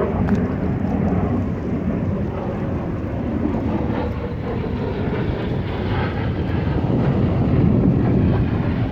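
Fixed-wing aircraft flying past: a loud, steady engine rumble that grows a little louder toward the end.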